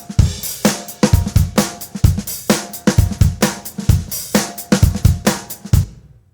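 Background music: a drum-kit beat of kick, snare and hi-hat in a steady rhythm, which fades out near the end.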